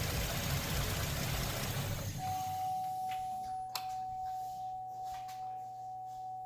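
GMC Acadia's 3.6-litre V6 idling smoothly with the gas cap off, as a test after a new purge valve. About two seconds in the engine sound stops abruptly. What remains is a quieter steady high tone, a low hum and a single click.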